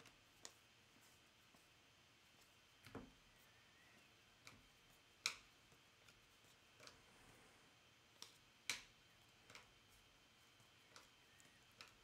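Faint, scattered clicks and taps of trading cards being handled and set down on a table, with a soft low thump about three seconds in.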